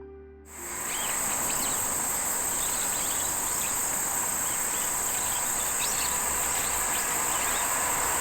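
Crickets chirping in a steady, high, continuous trill over a constant background hiss, starting about half a second in.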